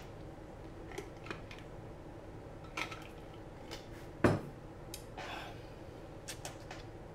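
Scattered light clicks and taps of small hard objects being handled on a workbench, with one sharper knock about four seconds in.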